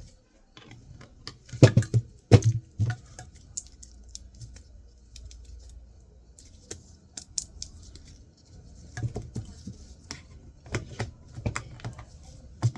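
Small metal parts of a hard drive and a screwdriver clicking and clinking as the drive is taken apart by hand, with a few sharper knocks in two clusters.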